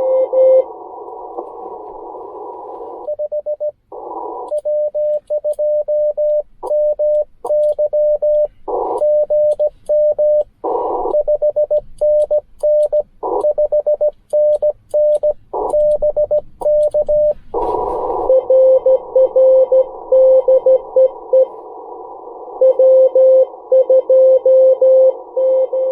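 Morse code (CW) on a Ten Tec Argonaut V transceiver. A station comes in through band hiss at first. From about three seconds in, the operator sends a long keyed over as a clean sidetone with the receiver muted, broken by brief bursts of hiss and accompanied by faint clicks of the key paddle. About two-thirds of the way through, the hiss returns as a station answers in Morse at a slightly lower pitch.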